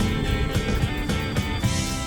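Background music: a country-style guitar track with a steady beat.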